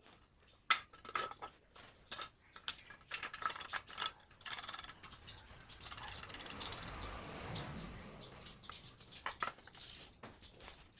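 Hand-crank rotary drilling machine being worked: irregular metallic clicks and knocks, then a steadier scraping noise for a few seconds, with a couple more knocks near the end.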